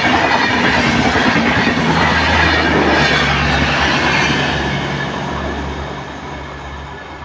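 Garib Rath Express train running past at speed with a loud rushing rumble of wheels and coaches. The noise fades steadily over the last few seconds as the train moves away.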